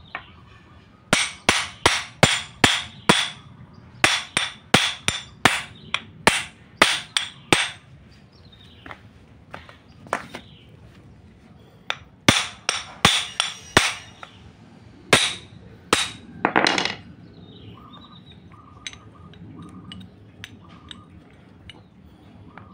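Steel hammer striking the yoke of a propeller shaft's universal (cross) joint, driving the bearing caps out to remove the joint. Sharp, ringing metal blows, about three a second, in runs with short pauses between, stopping for the last few seconds.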